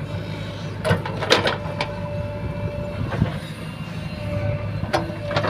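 JCB 3DX backhoe loader's diesel engine running steadily, with a faint whine on and off and several sharp metallic clanks and knocks from the working machine, the loudest about a second in.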